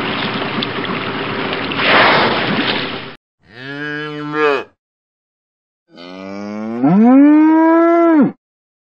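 About three seconds of rushing, splashing water, then a zebu cow mooing twice: a short moo, then a longer one that rises in pitch and holds before cutting off.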